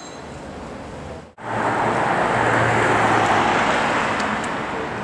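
Street traffic: a car driving past close by, its engine and tyre noise coming in loud after a cut about a second and a half in, then slowly fading.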